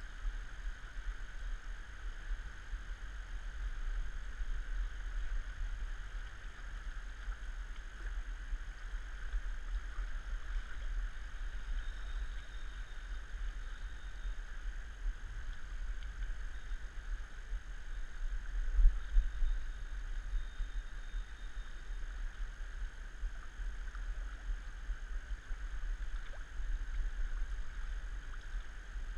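Steady rush of fast-flowing river water with low wind rumble on the camera microphone, and one louder low thump about nineteen seconds in.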